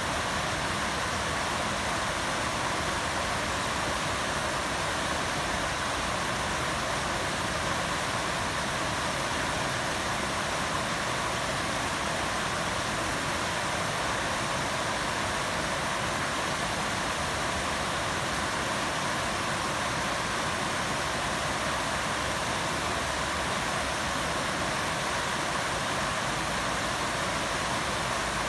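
Running water making a steady, unbroken rushing noise.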